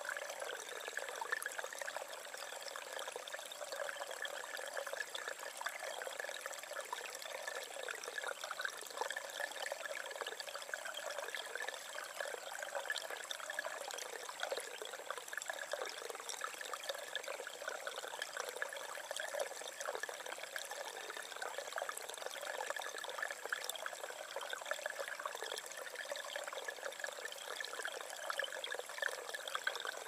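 Small stream cascading over mossy rocks and splashing into a shallow pool: a steady, light trickling splash with no deep rumble.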